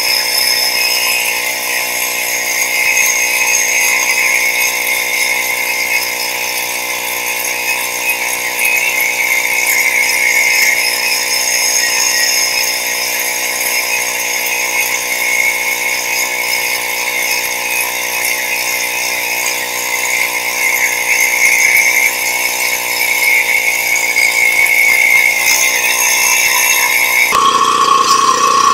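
A 7 hp rotary tiller's small engine running steadily at high speed with a buzzing, chainsaw-like note. Near the end the sound changes abruptly to a different engine note.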